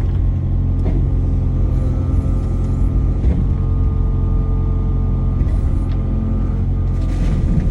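Diesel engine of a compact tracked machine running steadily, with a few clanks and scrapes scattered through.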